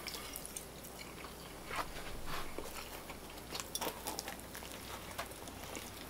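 A person biting into a grilled chicken sub and chewing, with soft, scattered mouth clicks.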